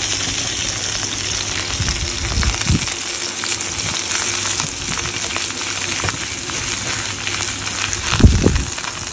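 Sea bream sizzling steadily as it fries without oil in a Saladmaster electric skillet, with a spatula working under the fish. Dull low thumps come about three seconds in and, loudest, near the end.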